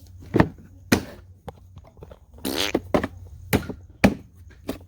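A handful of sharp knocks and thuds, spaced unevenly, with a short harsh rasping sound about two and a half seconds in.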